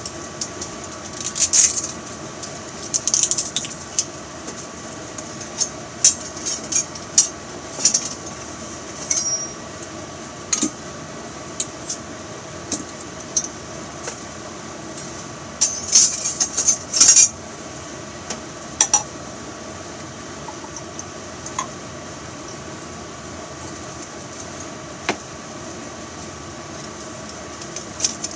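Dishes, utensils and glassware clinking and tapping as they are handled, in scattered short clicks with a quick cluster of louder clinks a little past halfway. A steady hum runs underneath.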